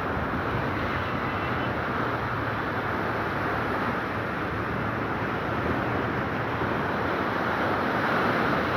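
Sea surf washing against the shore: a steady rushing noise with a low rumble, swelling slightly near the end.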